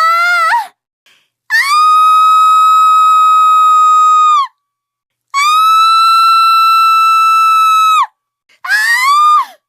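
Two long, high-pitched held squeals, each about three seconds and steady in pitch, between short falling squeaks near the start and near the end.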